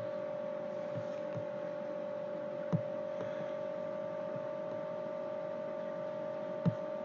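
Steady electrical hum with a constant mid-pitched tone, broken by two short computer mouse clicks, one a little under halfway through and one near the end, as the corners of a sketch rectangle are placed.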